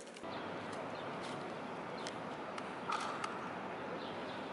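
Steady outdoor background noise in an open lot, with a few faint ticks and a short beep about three seconds in. No drone motor is heard running.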